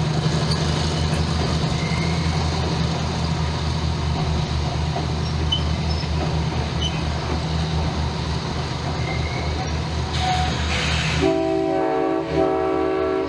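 Diesel locomotive engine running with a steady low hum. A short hiss comes about ten seconds in, and then the locomotive's multi-tone air horn sounds near the end, broken into short blasts.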